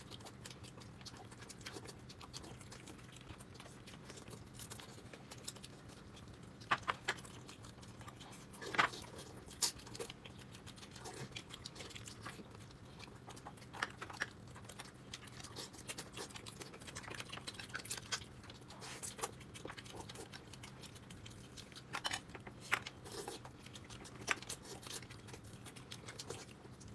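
Faint eating sounds: a person chewing, with scattered small clicks and smacks, a few of them a little louder, over a low steady hum.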